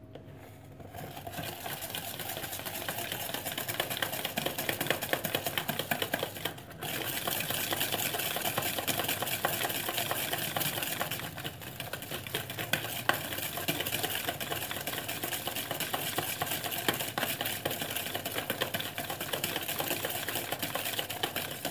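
Wire whisk beating butter and powdered sugar in a plastic bowl, its wires rattling and scraping quickly against the bowl's side as the mixture is creamed. It starts about a second in and breaks off briefly about seven seconds in.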